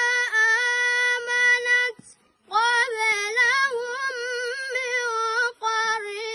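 A young boy chanting Quran recitation in a high, melodic voice, holding long notes that waver slowly. He pauses briefly for breath about two seconds in and again near the end.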